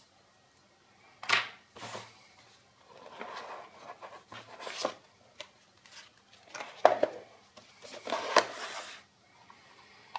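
Unboxing handling noise: cardboard packaging and a small plastic camera being handled, a series of scrapes, rustles and sharp light knocks with short pauses between them.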